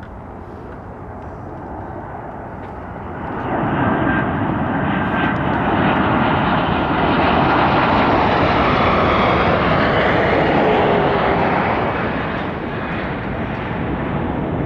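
Jet aircraft engine noise. It swells sharply about three and a half seconds in, stays loud through the middle, and eases slightly near the end.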